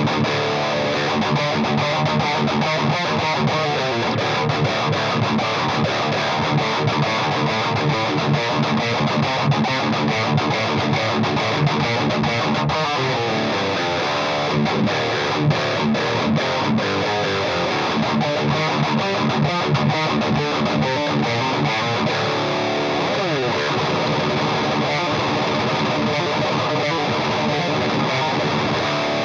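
Distorted electric guitar riffing in D standard through a Marshall Vintage Modern 2466 100-watt valve head, boosted by a KHDK Ghoul Screamer overdrive pedal with the amp's gain on max. The tone is chunky and quite dry, with a couple of downward pitch slides partway through.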